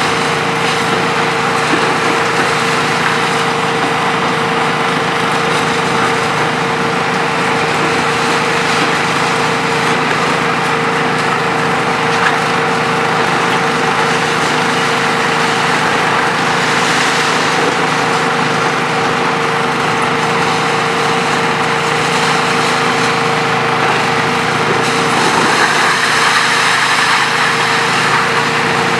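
Hitachi ZX 470-3 high-reach demolition excavator's diesel engine running steadily under hydraulic load, with a constant whine from its hydraulics. A single sharp knock comes about twelve seconds in, and a short hiss of noise near the seventeen-second mark.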